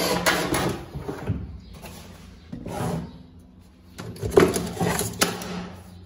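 Metal ball-bearing telescopic drawer slides being handled, sliding and clacking in three bouts, with a few sharp clicks.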